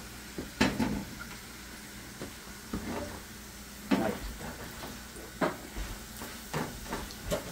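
Food frying in hot oil in a skillet, a faint sizzle under it, while a spatula knocks and scrapes against the pan now and then, about seven times.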